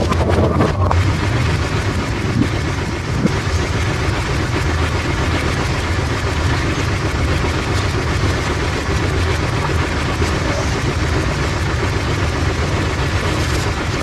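Bowling pins crashing and scattering as a ball hits them, right at the start, then the automatic pinsetter's machinery running steadily with a continuous mechanical rumble and rattle.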